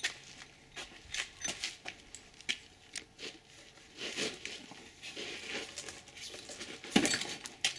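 Metal wrenches clinking and tapping irregularly as they are fitted onto a tight brake caliper retaining bolt, with a sharper knock about seven seconds in.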